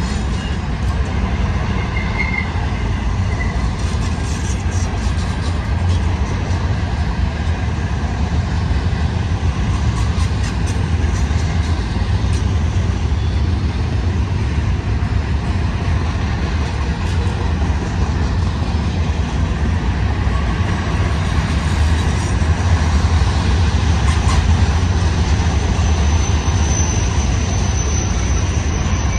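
Double-stack intermodal freight cars rolling past, a steady low rumble of steel wheels on rail. Near the end a thin, high wheel squeal sets in as the wheels take the curve.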